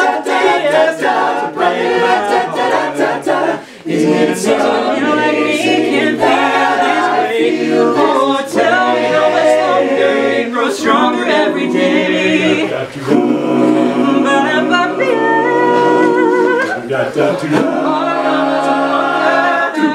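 A cappella group singing with no instruments: several backing voices and a low sung bass part under a lead singer on a microphone.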